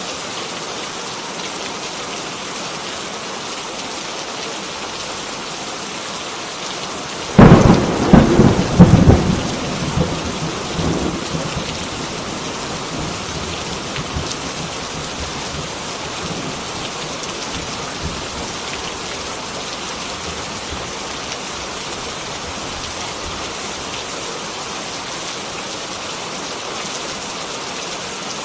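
Heavy rain falling steadily. About seven seconds in, a sudden loud thunderclap breaks in and rumbles away over the next few seconds.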